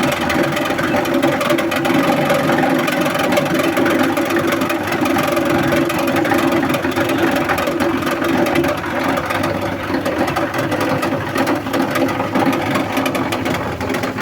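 SM-15 multipurpose chopping machine for shredding waste paper running steadily, with a continuous motor-driven drone and whir.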